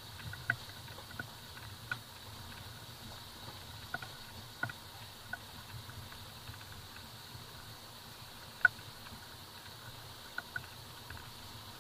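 Maruti Suzuki Vitara Brezza crawling over a rough dirt-and-gravel track: a steady low rumble with scattered sharp clicks and knocks from the stony surface, the loudest about two-thirds of the way through.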